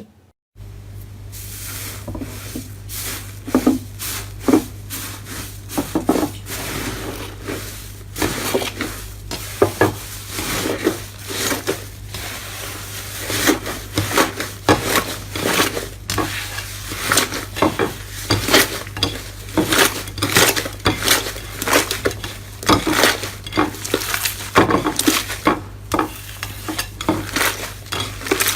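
Close-miked slime being squished and worked by hand: a dense run of sharp, irregular clicks and sticky crackling pops over a steady low electrical hum.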